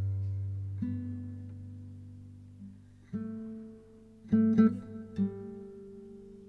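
Background music on acoustic guitar: picked notes left to ring out and fade, with a quick cluster of plucked and strummed chords a little past the middle.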